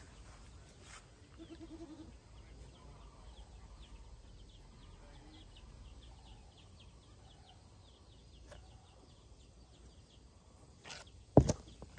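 A goat bleating once, a short quavering call about a second and a half in, over faint high ticking. A loud sharp knock near the end.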